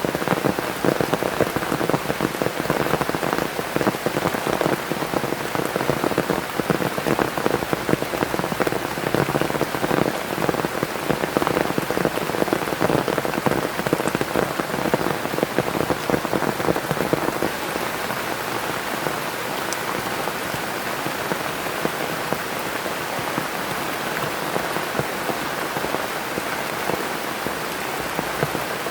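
Heavy rain falling, a dense spatter of drops striking a surface. It eases a little about two thirds of the way through and runs on steadier and slightly softer.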